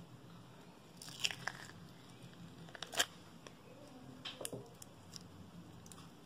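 Green glitter slime being squeezed out of a plastic tub and handled: sticky squishes with sharp pops and clicks, the loudest about three seconds in and a quick cluster about a second later.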